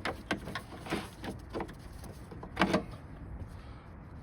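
Scattered clicks and knocks of hands working at the plastic headlamp housing and its rear cover of a Jaguar XJ8, the loudest knock about two and a half seconds in.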